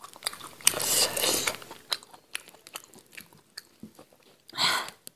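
Close-miked eating sounds: biting, chewing and smacking on cooked goat head meat, with a louder bout about a second in and another near the end, and small clicks between.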